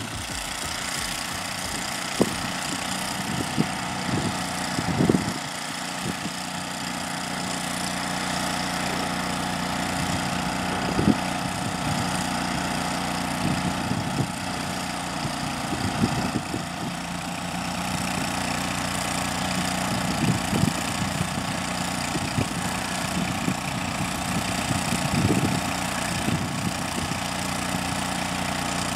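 An engine idling steadily, with irregular low thumps over it.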